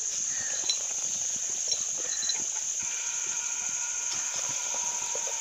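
Gram-flour-battered okra bajji deep-frying in hot oil, a steady sizzle with fine crackling as the pieces are dropped in. Crickets chirp in a constant high band behind it.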